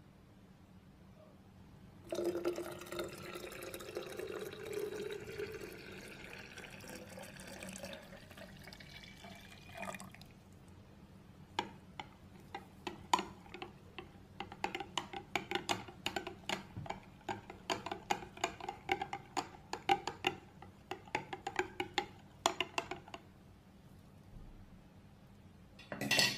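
Liquid poured into a glass pitcher for several seconds, then a spoon stirring the drink and clinking quickly and repeatedly against the glass for about ten seconds, with one louder clink near the end.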